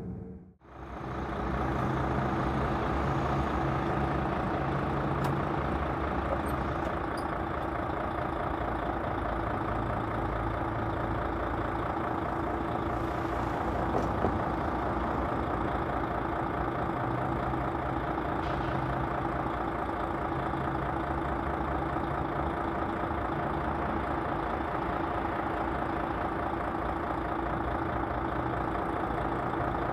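Mercedes-Benz Actros diesel truck engine idling steadily while the truck stands parked.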